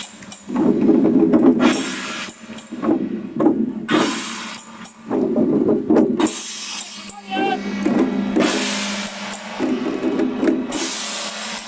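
Drums and cymbals playing in irregular loud bursts, with voices mixed in.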